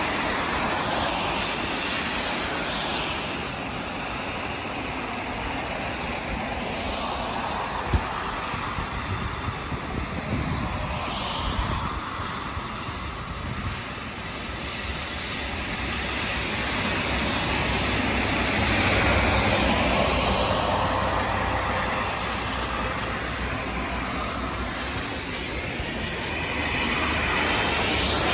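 Cars passing one after another on a rain-soaked road, their tyres hissing through the water on the asphalt, each pass swelling and fading over a steady background wash. A single sharp click about eight seconds in.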